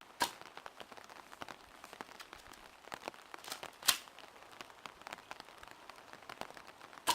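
Steady rain pattering in many small drop clicks, with a few sharper knocks, the loudest about four seconds in.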